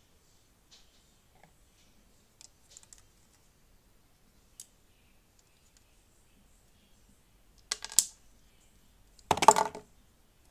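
LEGO plastic pieces clicking and knocking as a clawed leg section is handled and fitted onto a LEGO T. rex skeleton: a few faint ticks, then two louder bursts of sharp clicks near the end, the last the loudest.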